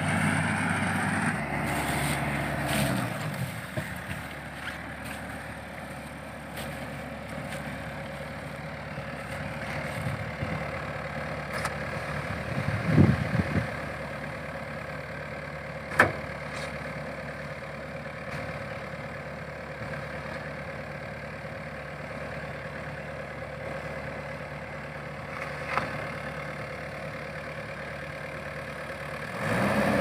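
Rice combine harvester's engine running steadily, with a dull bump about thirteen seconds in and a sharp click about three seconds later.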